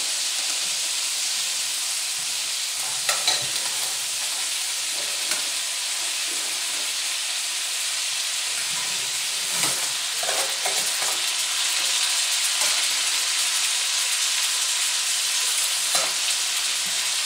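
Melted butter sizzling steadily in a wide pan as boiled crab legs are laid into it with metal tongs. A few light knocks of the tongs and legs against the pan come through over the hiss.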